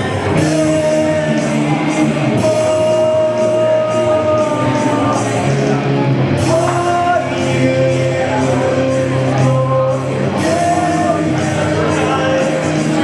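Live rock song, amplified instruments with a singer holding long notes.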